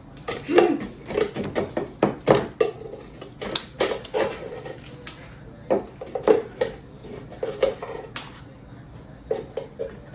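A spoon knocking and scraping against a mixing bowl in quick, irregular strokes, several a second, as hard brown sugar and butter are mashed and stirred by hand.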